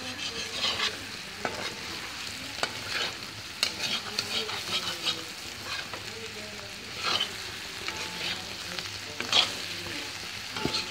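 Potato cubes sizzling in hot oil in a black pan while a metal spatula stirs and turns them, scraping the pan now and then over the steady sizzle. The potatoes are roasting toward crisp and turning over without sticking.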